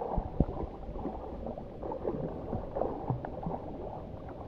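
Sea water sloshing and gurgling against the rocks at the water's edge, with two sharp knocks near the start.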